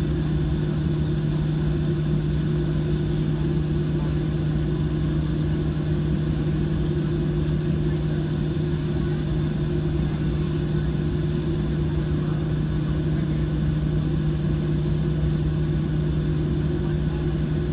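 Boeing 737-700's CFM56 jet engines at idle thrust during taxi, heard inside the cabin as a steady drone with a strong low hum that does not change.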